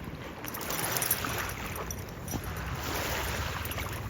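Wind on the microphone and water lapping at the shore, with a faint low steady hum underneath.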